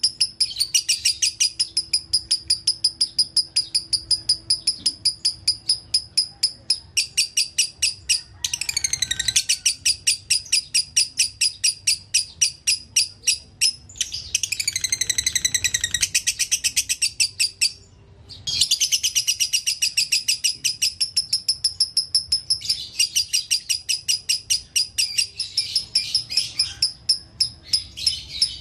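Lovebird singing a long, fast chattering song of repeated shrill notes, the continuous 'dobelan' chatter, broken by short pauses about 8, 14 and 18 seconds in, with falling glides after the first two pauses.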